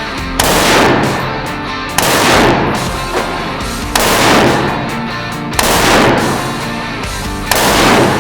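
Background rock music with five loud crashing hits about two seconds apart, each dying away over about a second.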